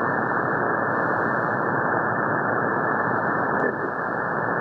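Shortwave receiver static and hiss in lower sideband on the 80-metre band as it is tuned, steady and dull with the highs cut off. A brief click comes about three and a half seconds in.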